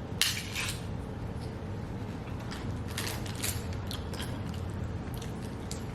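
A fortune cookie being unwrapped and cracked open: crinkling, crackling spells about a quarter second in and again around three seconds in, over a steady low hum.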